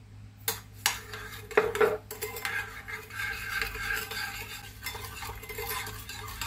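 Metal spoon against a ceramic bowl: a few sharp clinks about half a second to two seconds in, then steady scraping as a thick ketchup sauce is stirred round the bowl.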